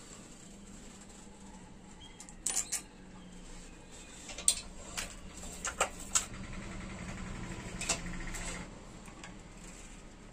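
Small metal clicks and taps of moped parts being handled and fitted by hand, here a brake lever, its cable and handlebar fittings. The clicks come one at a time every second or so, with a denser stretch of handling noise about six to eight seconds in, over a faint steady hum.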